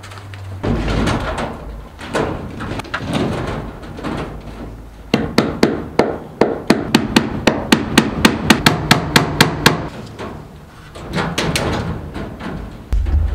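Hammer tapping fasteners through hardware cloth into the coop's wooden framing: a quick run of light taps, about four or five a second, starting about five seconds in and stopping about five seconds later, with a few more taps near the end. Before the taps there are a few seconds of irregular handling noise as the wire mesh is positioned.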